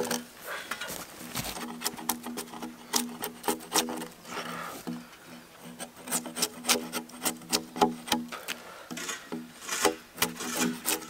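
Bark being scraped off a log with a hand tool: repeated rasping strokes of metal on wood, at times three or four a second.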